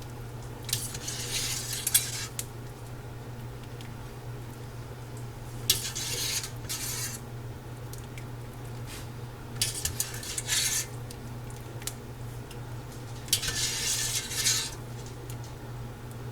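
A utensil scraping and clinking against the inside of a pot of chicken broth in four short bouts, fishing out bay leaves and peppercorns.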